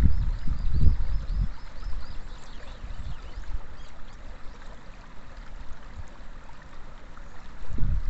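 Shallow water flowing and lapping over rocks at the shore, a steady rushing. Wind buffets the microphone in low rumbling gusts during the first second and a half and again near the end.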